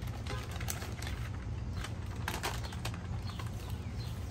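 Cardboard box flaps and paper packing handled as a boxed model train passenger car is unpacked: scattered crinkles, scrapes and light taps over a steady low hum.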